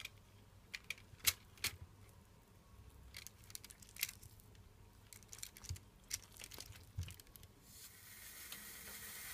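Light, scattered clicks and taps of a metal fork against a foil-lined baking tray as pieces of baked chicken are turned over. A faint hiss comes in near the end.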